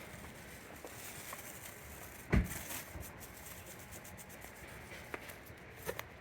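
A single dull thump about two seconds in, with a few faint clicks and knocks over a quiet background.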